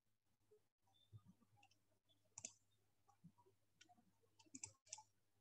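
Near silence with a few faint, scattered computer mouse clicks over a faint low hum.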